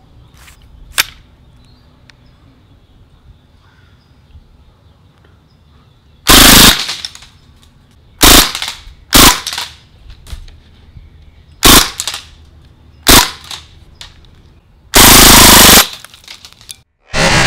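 MAC-11-style automatic airsoft submachine gun firing six short bursts a second or two apart; the last burst is the longest. A single sharp click comes about a second in.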